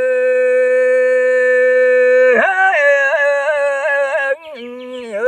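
A man singing a traditional Kaubru (Reang) song. He holds one long steady note, then a little past two seconds in his voice rises and wavers through quick ornamented turns.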